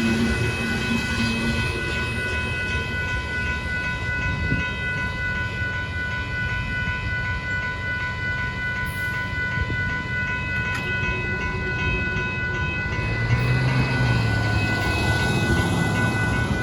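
Union Pacific gravel train rolling past: a steady rumble of freight cars on the rails, with steady high ringing tones over it that stop near the end.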